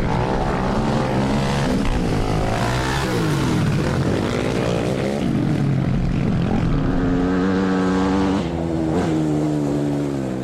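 Quad bike engine running, its pitch rising and falling several times as it revs and eases off, then holding a steadier note for the last couple of seconds and starting to fade near the end.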